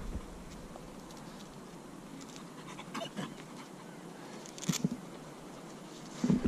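Quiet handling noise: faint rustling of fabric and gear with a few short clicks. The sharpest click comes about three-quarters of the way through.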